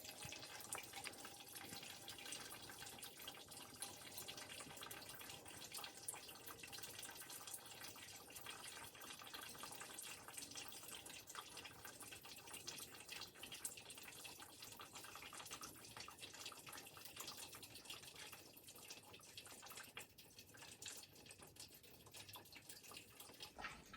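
Faint water trickling and dripping, with many small irregular ticks, as a thin stream runs from a raised bucket down over wet sand in a stream-table model.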